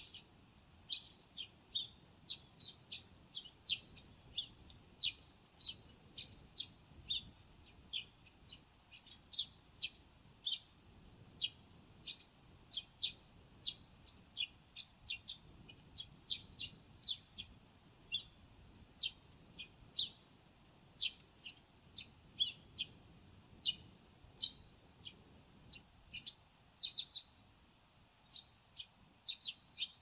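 Eurasian tree sparrow calling to itself, a long run of short, high chirps at irregular intervals, about one or two a second, sometimes two or three in quick succession.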